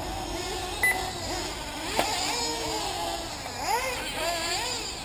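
Small two-stroke nitro engines of 1/8-scale RC buggies revving up and down on the track, their pitch sweeping up and falling away. A short electronic beep sounds about a second in, and a sharp click about two seconds in.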